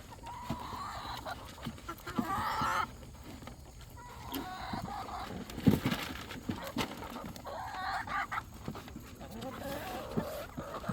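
Chickens clucking and calling, with a rooster crowing, the loudest calls about two seconds in and again near eight seconds. A single sharp knock sounds about halfway through.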